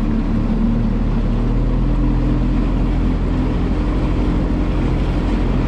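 Motorboat engine running steadily under way, a low, even drone, with water rushing along the hull.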